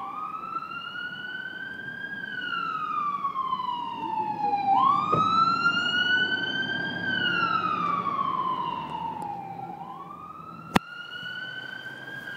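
Fire department aerial ladder truck's siren wailing, rising and falling slowly about every five seconds. It is loudest as the truck passes a few seconds in, with the truck's engine rumbling beneath. There is a single sharp click near the end.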